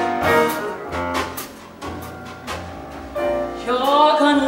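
Grand piano playing a slow jazz-ballad introduction with a double bass underneath. About three and a half seconds in, a soprano starts singing the opening line with vibrato over the accompaniment.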